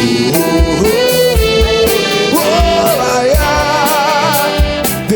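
Live band playing a groove-soul arrangement: kick drum and bass under a horn section playing held, swelling notes with vibrato.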